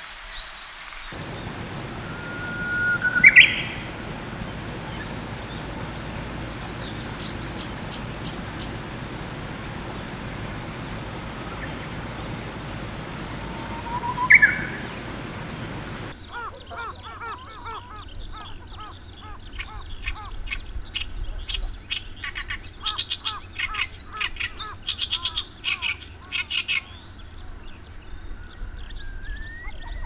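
A Japanese bush warbler sings its 'hoh-hokekyo' song twice, about 3 and 14 seconds in: each time a long whistled note followed by a quick rising flourish. From about halfway an Oriental reed warbler takes over with its harsh, rapidly repeated 'gyoshi gyoshi' chattering song.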